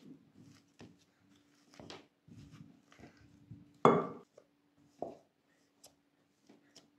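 Boiled potatoes being crushed with a clear hand masher in a glass bowl: irregular soft thuds and knocks as the masher pushes through the potato onto the bowl's bottom, the loudest about four seconds in.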